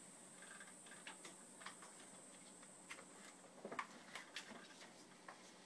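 Faint, irregular clicks and light knocks of a book being taken from a stack on a desk and opened, its pages handled.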